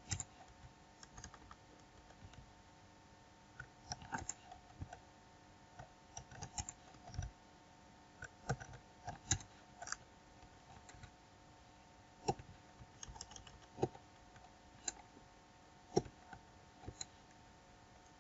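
Computer keyboard keystrokes, single presses and short quick runs at irregular intervals, faint, over a low steady hum.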